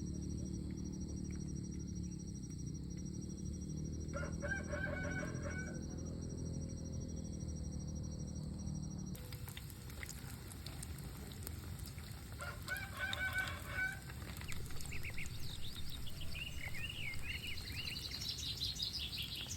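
Rooster crowing twice, each crow a bit over a second long, the first about four seconds in and the second about twelve seconds in. Small birds chirp in quick high calls near the end. Background music runs under the first crow and stops abruptly about nine seconds in.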